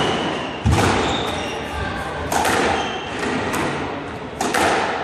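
Squash rally: the ball cracking off rackets and the court walls in several sharp, echoing hits, the loudest about a second in, with short squeaks of shoes on the wooden floor between them.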